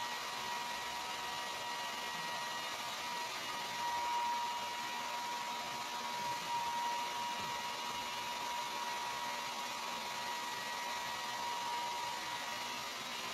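Hand-held hair dryer running steadily: a constant rush of air with a steady whine, blowing on a Pomeranian's fur.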